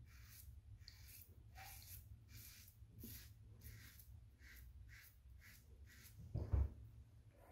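Faint scraping of a Rockwell 6S stainless safety razor with an Astra Platinum double-edge blade cutting stubble through shaving lather, in short quick strokes about three a second. About six and a half seconds in there is one brief, louder low thump.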